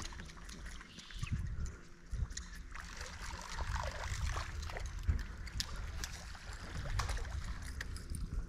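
Water lapping and trickling against a small fishing boat, with a low rumble on the microphone.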